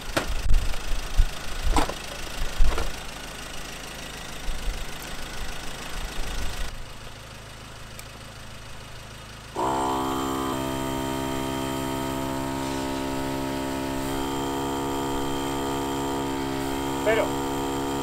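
Pickup engine idling with a few heavy thumps. About ten seconds in, a portable air compressor switches on and runs with a steady hum, pumping up tyres that had been let down to near zero pressure for the snow.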